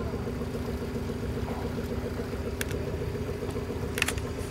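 A fishing boat's engine idling with a steady hum, as the boat sits still in the water. There are two short sharp clicks, about two and a half and four seconds in.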